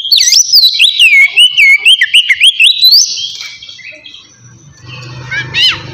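Oriental magpie-robin (kacer) singing in the clear, open 'ngeplong' style: a run of loud whistled notes sliding up and down for about three seconds, then a short call near the end. A low steady hum comes in during the second half.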